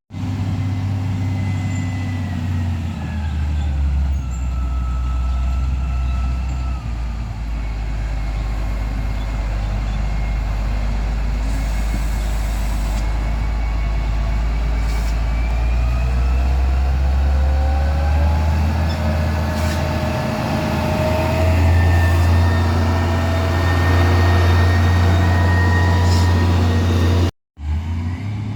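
Heavy diesel vehicle engine running loud and steady, with a whine that slowly falls and then rises in pitch as the engine speed changes. The sound breaks off for a moment near the end.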